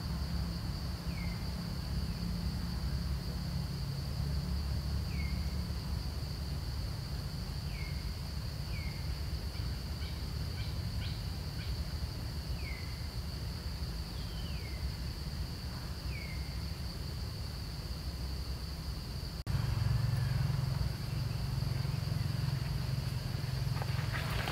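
Outdoor insect drone, steady and high-pitched, over a low rumble that jumps louder about twenty seconds in. A bird repeats a short falling chirp every second or two through the first two-thirds.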